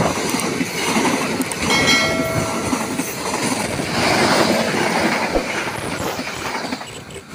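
Indonesian passenger train coaches rushing past close to the track, their wheels clattering and rumbling on the rails. The noise dies away near the end as the train moves off.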